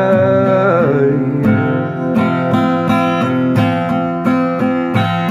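Acoustic guitar strummed in a steady rhythm, with a man's held sung note that ends about a second in, leaving the guitar alone.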